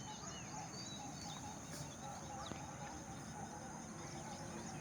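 Faint outdoor ambience: scattered short bird chirps over a steady high-pitched hum and a low even background hiss.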